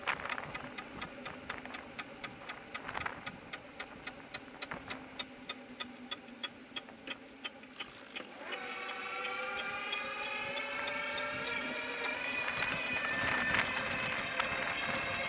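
Rhythmic ticking noise from a bicycle's back wheel while riding, sharp even ticks about three a second that fade out around eight seconds in. A whine made of several tones then rises gradually and takes over.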